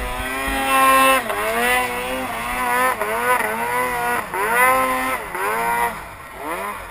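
Two-stroke engine of an Arctic Cat M8 snowmobile working in deep powder, its pitch dropping and climbing again several times as the throttle is worked. It drops lower and quieter near the end.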